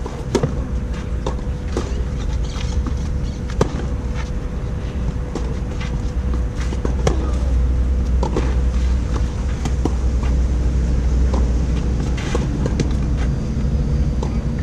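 Tennis rally on a clay court: sharp pops of the ball hitting the strings and bouncing, coming at irregular intervals, starting with a serve. A steady low rumble runs underneath.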